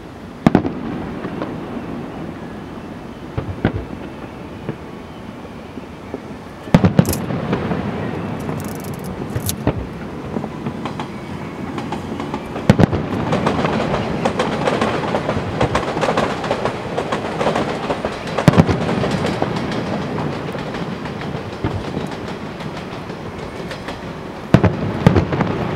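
Aerial fireworks shells bursting in a series of sharp booms a few seconds apart, each followed by a rumbling echo, over a continuous rumble that grows denser in the middle.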